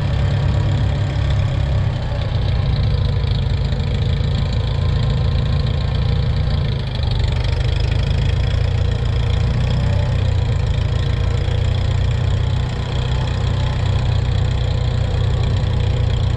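Tractor engine running steadily close up as the tractor drives slowly, with a brief dip in level about seven seconds in.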